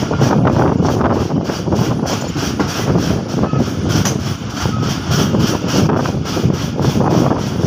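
Passenger train running along the track, heard from an open coach doorway: a steady rumble and rattle of wheels on rails.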